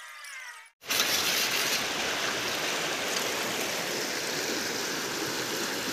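Shallow river rushing over rocks: a steady water noise that starts abruptly about a second in, after a brief faint squeaky sound.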